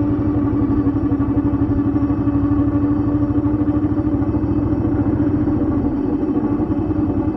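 Engine of the vehicle carrying the camera running steadily while it drives along: an even, fast low pulsing under a steady hum, with no revving or gear change.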